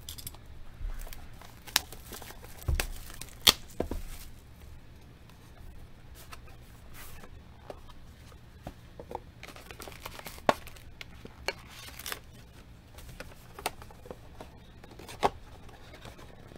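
Hands tearing open and crinkling the packaging of Panini Luminance football trading cards, with scattered sharp clicks and taps as the cards and wrappers are handled.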